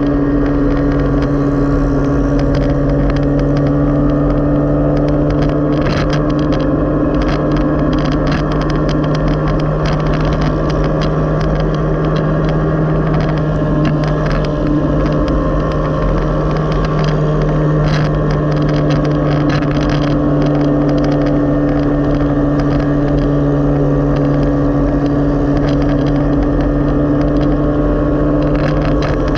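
Motorcycle tricycle's engine running steadily at cruising speed with a constant low drone, with scattered clicks and rattles from the ride.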